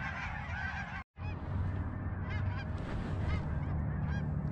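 A large flock of snow geese calling overhead in a dense, overlapping chorus. About a second in, the sound cuts out briefly, and after that only scattered calls come through over a low steady rumble.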